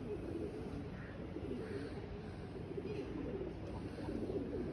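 Domestic racing pigeons cooing, many low coos overlapping in a steady chorus.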